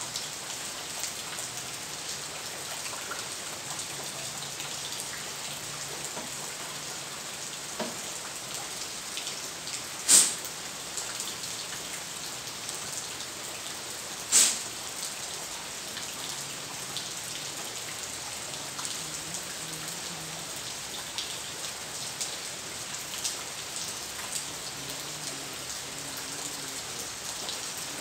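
Steady rain falling, an even hiss with many small patters. Two sharp knocks stand out about ten and fourteen seconds in.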